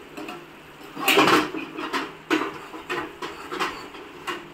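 Metal utensils clattering against a cooking pan: several sharp knocks, with one louder scrape about a second in.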